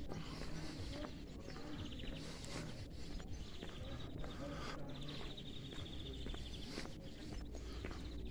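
Outdoor ambience with a songbird trilling twice, about two and a half and five seconds in, over a steady low background rumble.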